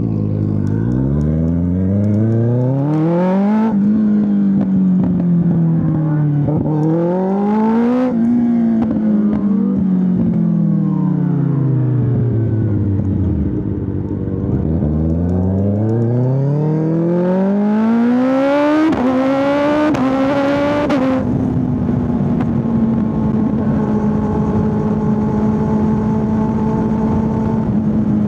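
Kawasaki ZX6R 636 inline-four motorcycle engine under way: it pulls hard through the revs with quick upshifts, eases off with the revs falling for several seconds, accelerates through the gears again, then settles into a steady cruise for the last third.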